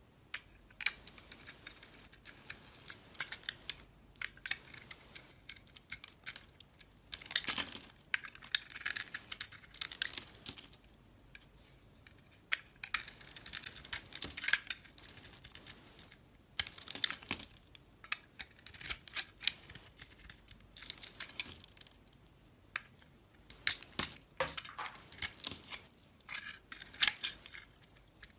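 A blade cutting through soap, each cut a crisp, crackling crunch lasting one to three seconds, repeated about a dozen times with short pauses between.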